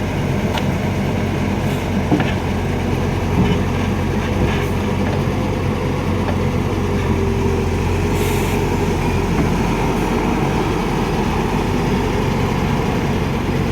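Excavator's diesel engine running steadily under working load, with a few short metallic knocks and a brief hiss about eight seconds in.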